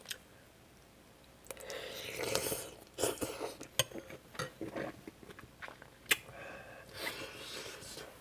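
Close-miked chewing of kimchi stew: wet mouth sounds and irregular clicks, beginning after about a second and a half of quiet, with one sharp click about six seconds in.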